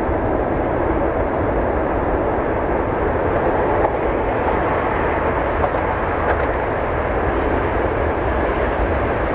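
2TE116 diesel-electric freight locomotive approaching with its train, its diesel engine and running gear giving a steady, even rumble.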